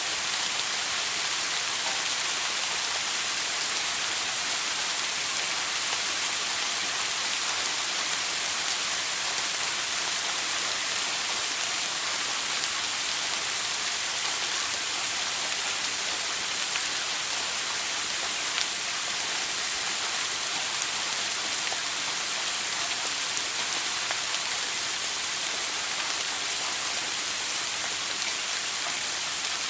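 Shower water spraying steadily onto a surface: an even, unchanging hiss of falling water with faint droplet patter.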